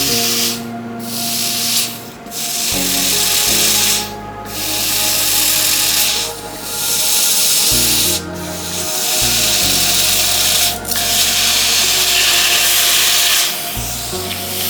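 Red-hot iron balls hissing against ice: a harsh, rough hiss in stretches of a second or two, broken by short gaps. Low sustained notes run underneath.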